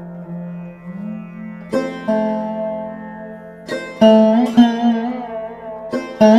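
Background music: a plucked string instrument playing a slow melody, notes struck and left to ring over a steady drone, with a note sliding up in pitch about a second in.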